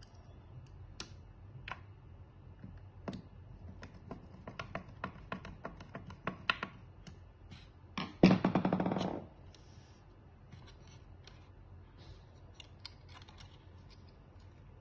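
Sharp clicks and taps of small hard objects being handled. Just after eight seconds in comes a loud rattling burst about a second long.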